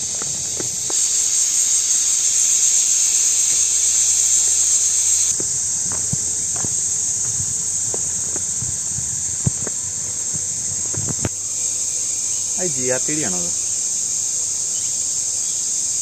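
Steady high-pitched drone of forest insects, louder for a few seconds near the start. Scattered footsteps sound on a leaf-strewn dirt path.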